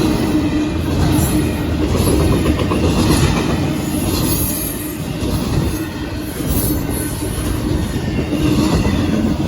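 Union Pacific intermodal freight train passing, its wheels rolling over the rails in a loud, steady rumble.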